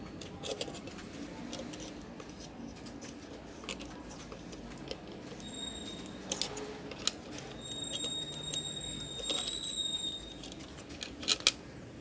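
Small clicks, ticks and scrapes of a metal hand tool handling a small circuit board and its parts. A faint, high, steady whistle runs through the middle of it.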